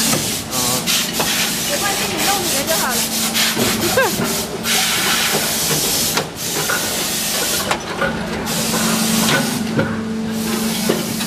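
Haitian plastic injection moulding machines running: a steady hum under a loud hiss that drops out briefly a few times, with quick clicks and knocks from the machine's gate and mould.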